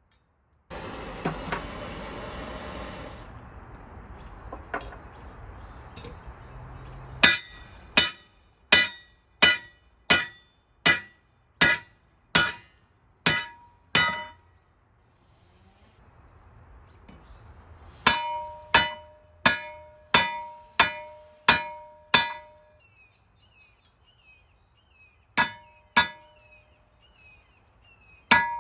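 Hammer blows on steel round stock laid on a trailer hitch used as an anvil, flattening the end into a screwdriver blade. The blows come in runs of steady strokes, about one and a half a second, and in the later runs the hitch rings on at two pitches after each blow. Near the start there are a few seconds of rushing noise before the hammering begins.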